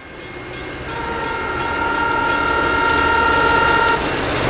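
Approaching diesel freight locomotive sounding its multi-note air horn in one long blast, from about a second in until near the end, over an engine rumble that grows louder. A quick, regular high dinging repeats throughout.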